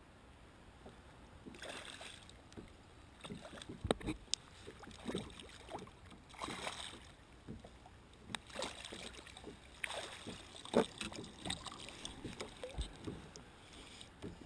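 Hooked sea bass splashing at the surface beside a kayak as it is drawn into a landing net and lifted out, with irregular bursts of splashing and water sloshing. There are a few sharp knocks, the clearest about 4 seconds in.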